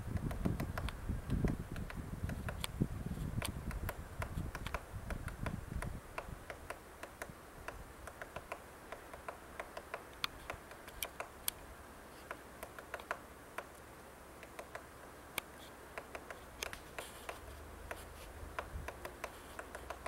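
Hairy woodpecker chiselling into a tree trunk, its bill striking the wood in irregular sharp taps, a few a second, as it chips out bark and wood. A low rumble underlies the first few seconds.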